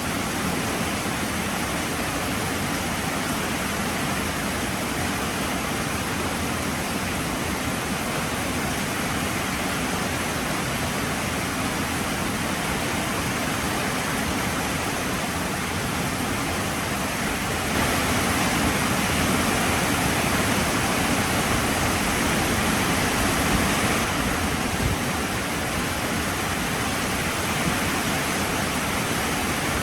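Heavy rain falling steadily, a dense even hiss. It turns louder for about six seconds past the middle, then eases back.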